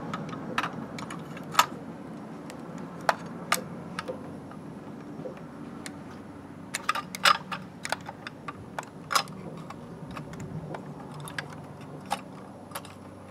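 Scattered small clicks and taps from a diecast toy front-loader garbage truck's lift arms and forks handling a toy dumpster. The clicks come irregularly, with a busier run of them a little past halfway.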